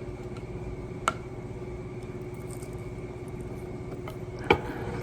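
Steady low hum with two sharp clicks: a light one about a second in and a louder one near the end, like a dish or utensil being tapped.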